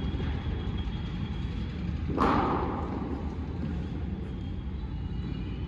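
A single sharp thud about two seconds in, echoing in a large indoor hall, over a steady low background rumble.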